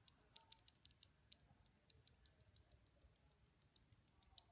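Faint, rapid, uneven clicking of keys being typed on a mechanical keyboard fitted with Gateron Pro 2.0 Yellow linear switches.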